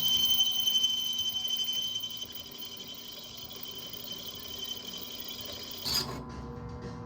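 Steady machine hum with a high whine, dying down over the first two seconds and then running on quietly. A short click comes near the end, and a lower steady hum follows it.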